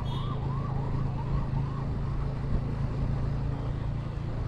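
Motorcycle engine running steadily at cruising speed, with wind and road noise as heard from the rider's seat. Over it, a siren yelps in quick rising-and-falling sweeps, about three a second, that fade out in the first two seconds.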